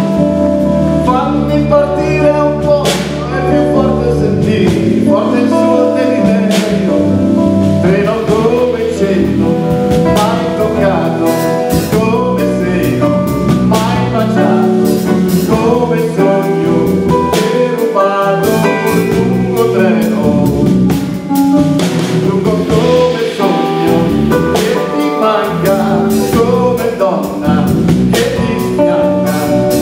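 Live band playing a song: a man sings lead over electric guitars and a drum kit.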